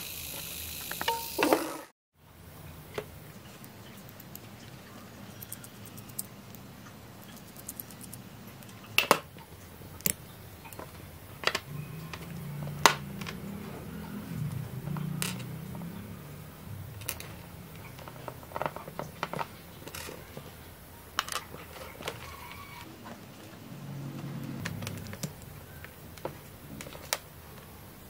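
A tiny servo motor whirring, cut off abruptly about two seconds in, followed by scattered small plastic clicks and taps as an SG90 micro servo has its horns pulled off and its case opened.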